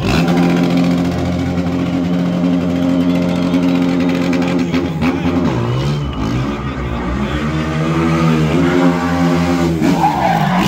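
Sport quad's engine held at high revs during stunt riding, then revving down and up again several times in the second half.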